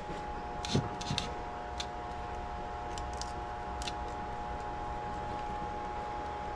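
Scattered light clicks and ticks of wiring and hand tools being handled at an air handler's control wiring, mostly in the first four seconds, over a steady hum with a few steady tones.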